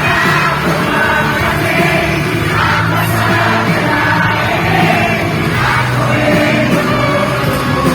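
Live pop rock band music with sung vocals, heard amid a concert crowd.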